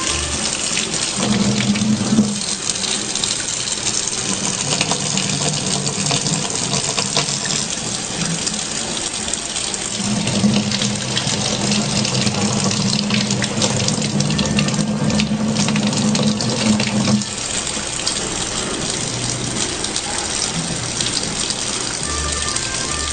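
Kitchen faucet running in a steady stream, the water splashing over a cat sitting beneath it.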